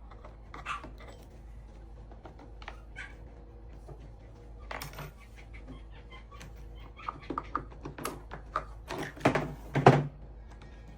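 Scattered clicks and knocks from a dirty cordless chainsaw being handled and its loose chain being worked, with a louder run of knocks in the last few seconds.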